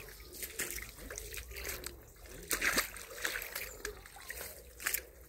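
Feet wading through shallow water over a gravel bed, splashing step by step, with the biggest splashes about halfway through and again near the end.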